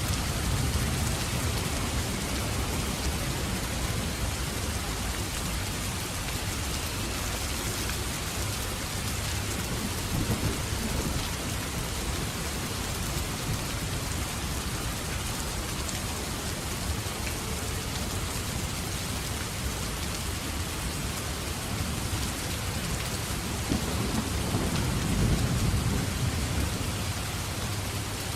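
Steady heavy rain with rolling thunder rumbling low several times, the strongest roll near the end.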